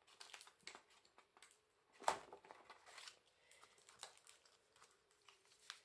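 Faint rustling and light clicks of paper and card being handled as a die-cut paper motif is worked out of its sheet, with one sharper tap about two seconds in.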